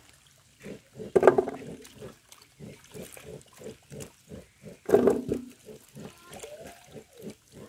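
An animal calling in a rapid series of short, low calls, three or four a second, with two louder, longer calls about a second in and about five seconds in.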